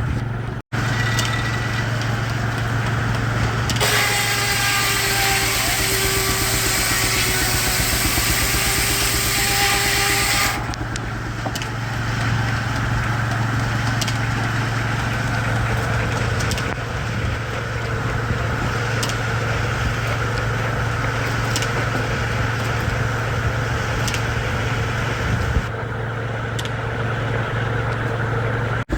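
Steam-driven Frick circular sawmill running steadily. About four seconds in, the blade bites into a log and for some six seconds gives a loud hissing whine whose pitch sags slightly under the load, then drops back to the steady run.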